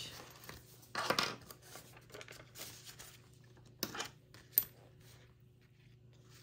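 Paper and coins being handled on a table: a rustle about a second in, then light clicks and one sharp, high clink near the middle. Under it a washing machine on its spin cycle hums faintly and steadily.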